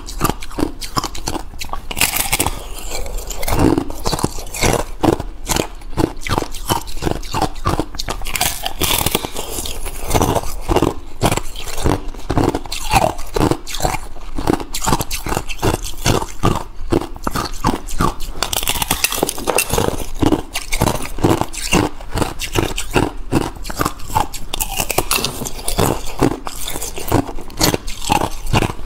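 Thin clear ice being bitten and chewed close to the microphone: a continuous run of crisp crunches, several a second.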